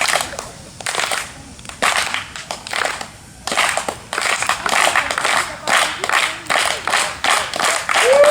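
A crowd clapping together on cue. At first there are single claps about a second apart; from about three and a half seconds in, they become a quicker, steady run of rhythmic claps.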